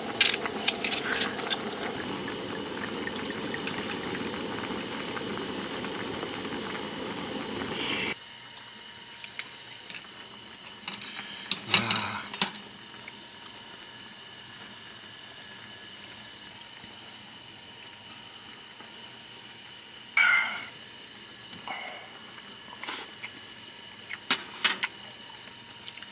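Crickets chirping steadily, heard as a constant high tone. For the first eight seconds a broad hiss sits beneath it and cuts off suddenly, and a few light knocks and clatters come later.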